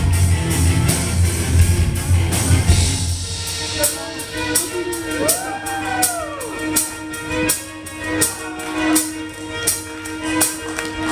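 Live instrumental metal: violin with full band, then the heavy bass and drums drop out about three seconds in. The violin carries on nearly alone, sliding up and down in pitch, over a steady ticking beat of about three clicks a second.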